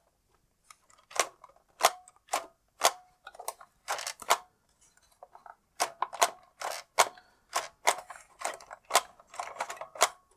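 Irregular sharp plastic clicks and taps, about two a second with a short pause midway, as a battery is pushed and wiggled in the battery compartment of a vintage Kenner Imperial Troop Transport toy. No electronic sound effects come from the toy: its sound unit is dead, with crusty battery terminals.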